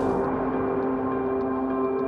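Ambient film music: a held chord of steady ringing tones, coming in as street traffic noise cuts off just after the start, with faint light ticks above it.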